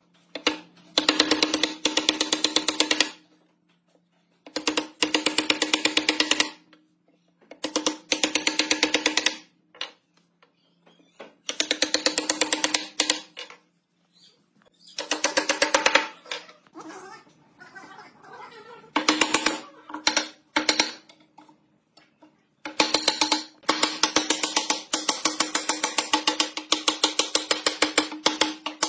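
A wooden mallet knocks pine slats into the mortises of a wooden rail. The blows come in rapid runs with short pauses between them, each strike a sharp wooden knock.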